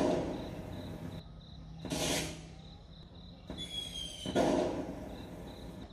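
Electric LED fireworks unit playing its recorded firework sound effect through a loudspeaker: three bangs with a fading crackle, at the start, about two seconds in and about four and a half seconds in, the last one led in by a short falling whistle.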